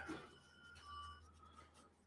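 Near silence, with faint rubbing of an eraser on a stick over a small patinated metal fitting, working the patina off the raised detail.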